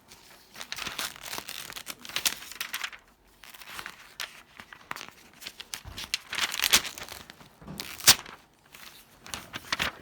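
Crinkling and rustling in bursts about a second long, with scattered sharp clicks; the loudest click comes about eight seconds in.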